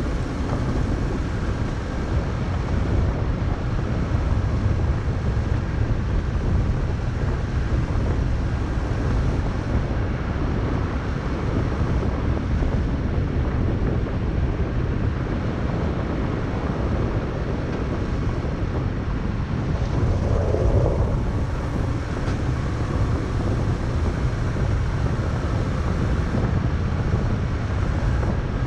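Vehicle driving steadily along a gravel road: a constant low rumble of tyres and engine, with wind buffeting the microphone.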